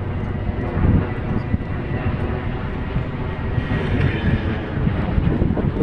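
An engine running steadily, an even droning hum with many overtones, with gusty rumble on the microphone underneath.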